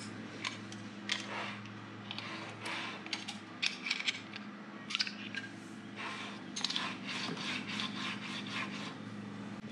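Cast-iron table of a Centec milling machine scraping and rubbing as it is slid along its freshly oiled dovetail slide, in a series of short, irregular strokes.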